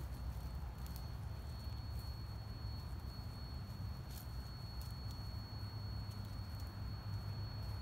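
Sandhill cranes foraging in dry leaf litter: scattered faint clicks and rustles of their bills and feet. Under them run a steady low rumble and a thin, steady high tone.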